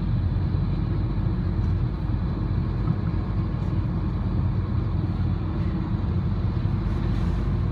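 Steady low rumble of engine and tyre noise heard from inside a moving vehicle's cabin, with heavy road traffic alongside.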